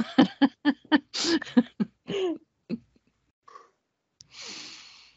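A person laughing in quick repeated bursts that trail off over about three seconds, then a short breathy exhale about four seconds in.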